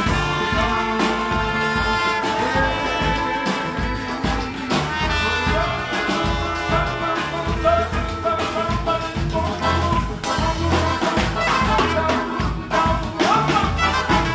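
Live band playing upbeat, swing-style dance music: saxophone and trumpet over double bass and drum kit, with a steady beat.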